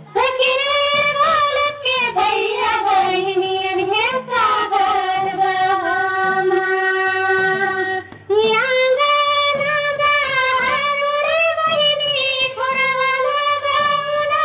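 Women's voices singing a Tharu folk song in unison, in long held notes, over a drum beating a steady rhythm about twice a second. The singing breaks briefly about eight seconds in and starts a new phrase.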